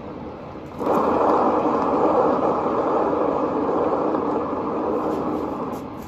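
Paint-pouring spinner turntable spinning under a canvas, making a steady rolling noise that gets louder about a second in and drops off just before the end.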